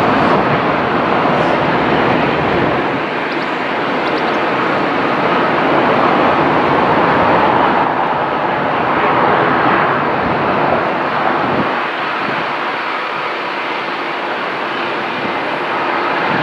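Loud, steady rushing noise of passing train and jet aircraft traffic. A deep rumble drops away about three seconds in, while the rushing swells in the middle and eases in the last few seconds.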